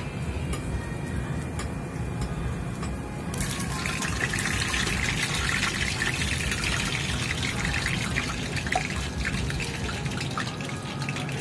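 Bread-wrapped vanilla ice cream ball deep-frying in hot oil in a steel pot: the oil sizzles with a dense crackle of tiny pops, growing louder about three seconds in.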